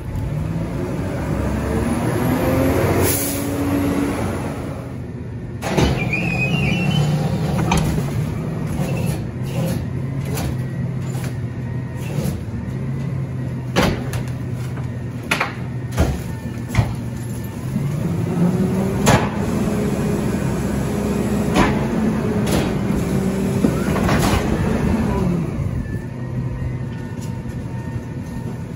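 Autocar ACX McNeilus rear-loader garbage truck's diesel engine running and revving up and down as the packer hydraulics cycle. Sharp bangs and clatter come through the middle as a plastic wheeled cart is tipped into the rear hopper.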